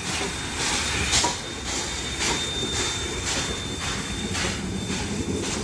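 Steam locomotive 5917, a NSW 59 class, running slowly past at close range, with a regular beat of about two strokes a second over a steady rumble. A thin, steady high whine sounds through the middle.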